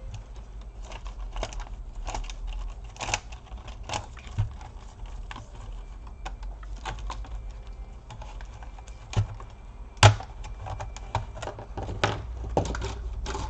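Scattered small clicks and taps of tools and plastic and metal parts being handled inside an opened laptop, over a steady low hum. The sharpest click comes about ten seconds in.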